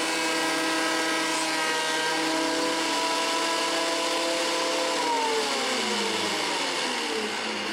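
12½-inch benchtop thickness planer running at a steady pitch, then switched off about five seconds in, its motor and cutterhead winding down with a falling pitch.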